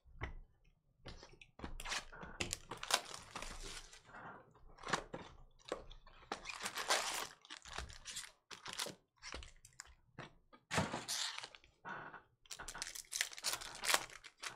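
Cardboard card box being opened and its foil-wrapped trading card packs handled and torn open: irregular crinkling and crackling of foil wrappers, with a few dull thunks of cardboard.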